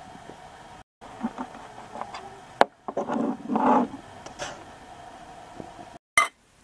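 Short bouts of scraping and small clicks from a utility knife working crumbled particleboard out of a damaged spot in a laminate countertop, broken by abrupt cuts to silence.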